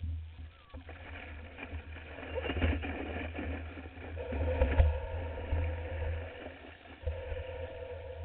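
Wind rumble and surf washing over the microphone of a camera mounted on the nose of a surfboard being pushed through shallow waves, swelling louder around the middle.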